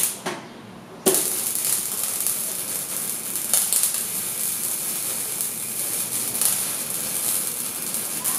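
MIG welding arc on steel rod: a brief spurt of crackling right at the start, then, about a second in, a steady crackling sizzle as a weld is run.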